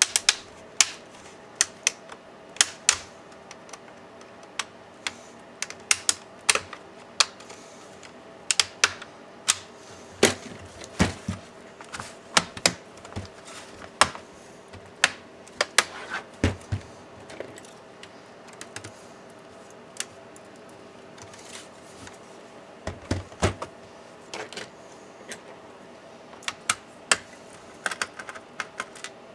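Irregular sharp clicks and taps of hands handling the plastic case of an MSI GP63 Leopard 8RD laptop on a work surface, with a few heavier knocks as it is turned and set down.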